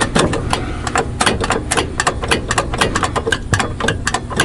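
Rapid, irregular metallic clicking and tapping from hand work on a truck carburetor and its throttle linkage, several sharp clicks a second, over a low steady hum.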